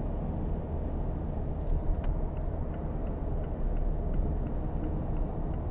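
Mazda2's 1.5-litre four-cylinder turbodiesel and its road noise while driving: a steady low rumble.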